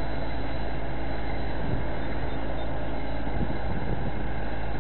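A vehicle engine running steadily, with a strong low hum.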